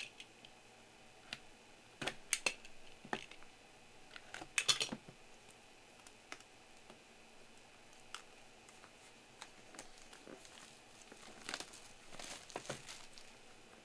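Hands handling small cardboard trading-card boxes: scattered light taps, scrapes and crinkling of wrapping. Louder clusters come about two seconds in, near five seconds and again near twelve seconds.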